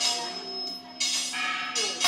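Live experimental industrial electronic music: a steady held tone under swells of hissing noise, with no beat.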